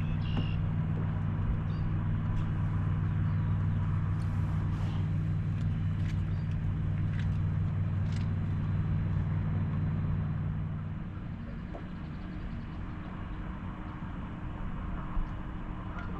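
Boat motor running steadily at slow trolling speed, easing down about eleven seconds in.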